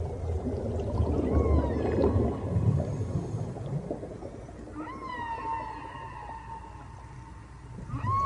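Whale-like calls: drawn-out pitched cries that rise and then hold or sag slightly, a couple of short ones early, a long one from about five seconds in and another near the end, over a low rumble that is loudest in the first half.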